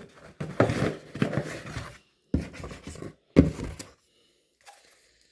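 Hands opening a package: rustling and scraping of the packaging in three bursts, stopping about four seconds in.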